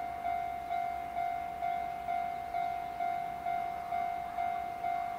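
Level-crossing warning bell ringing in a steady, even rhythm of about two strikes a second, each ring fading before the next. It is sounding because a train is approaching.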